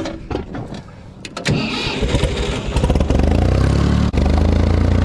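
Ford 4000 tractor engine starting up after a few clicks, rising in pitch as it is throttled up, then running steadily and loud.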